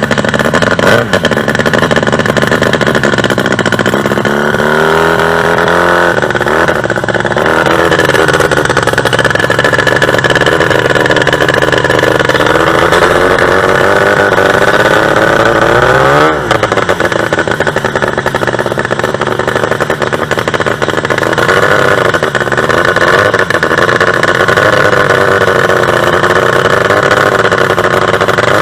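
Two-stroke racing-boat engine running hard at high revs. Its pitch sags and climbs again about a fifth of the way in, and dips sharply and recovers a little past halfway.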